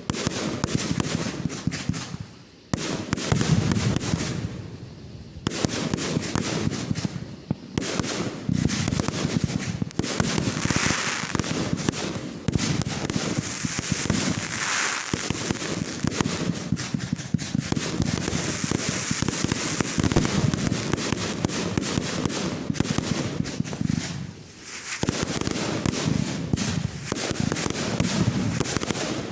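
Consumer fireworks going off in rapid succession: dense crackling and popping with bangs, near continuous, with a few short lulls.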